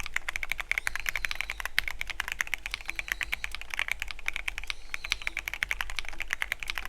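Fast, continuous typing on a Keychron Q13 Pro Max mechanical keyboard with red linear switches, a rapid run of key clacks with a brief pause about five seconds in.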